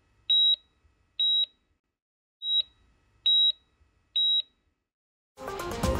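Heart-monitor style electronic beeps: one high tone sounding five times, roughly once a second. Music comes in near the end.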